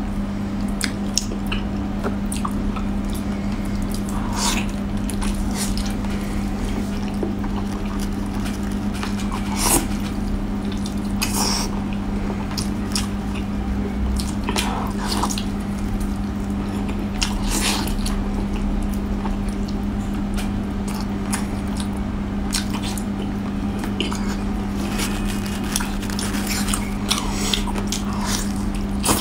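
Close-up wet eating sounds of a person biting, sucking and chewing meat off a braised lamb rib, with scattered sharp lip smacks, over a steady low hum.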